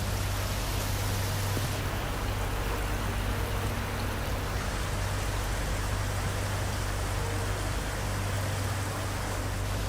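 Steady noise of a heavy rainstorm, rain and running water, with a constant low rumble underneath.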